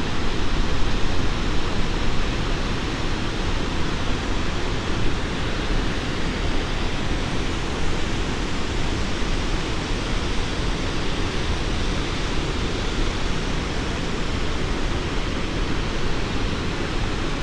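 Great Falls of the Potomac River: whitewater rushing over the rocks in a steady, loud, even wash of sound that does not change.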